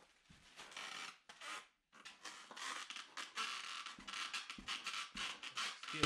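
Two-handled fleshing knife scraping flesh and fat off a coyote hide on a fleshing beam, in short repeated strokes: a few scattered strokes at first, then a denser run from about two seconds in.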